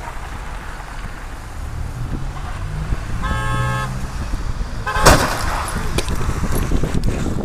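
A car horn blares for under a second, then about five seconds in a loud crash of cars colliding, with crunching and scattering debris after the impact, over steady traffic noise.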